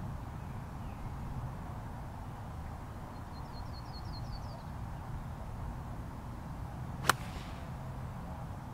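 A golf club strikes a ball once, sharply, about seven seconds in, with a brief ring after the impact. This is the loudest sound. A little earlier a small bird gives a quick high trill of about seven notes over a steady low background noise.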